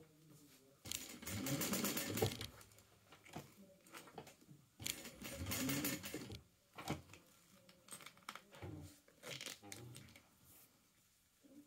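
Sewing machine stitching in bursts: two runs of under two seconds each, then a few short spurts, with pauses between.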